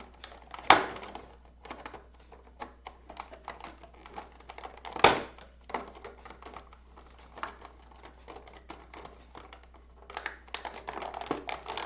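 Toy packaging of plastic and cardboard being handled and worked loose. Scattered light clicks and rustles, with two sharp knocks, about a second in and about five seconds in, and a busier run of clicking near the end.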